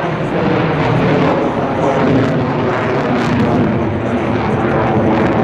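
F-22 Raptor fighter jet's engines, a loud, steady rushing jet noise as the aircraft manoeuvres overhead.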